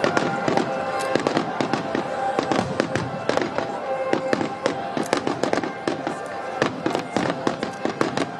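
Aerial fireworks shells bursting in quick succession: many sharp bangs and crackles overlapping, several a second, all the way through.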